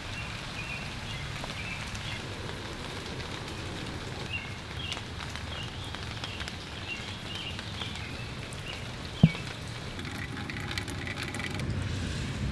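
Steady rain falling, with one sharp tap about nine seconds in.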